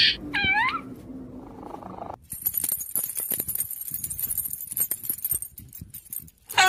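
Kitten meowing: one short meow that dips and rises in pitch about half a second in, and another loud meow starting near the end. Between them is a steady high hiss with many small clicks.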